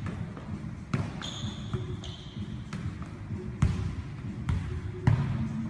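A football being kicked and bouncing on a hardwood gym floor, about once a second, each thud echoing around the large hall.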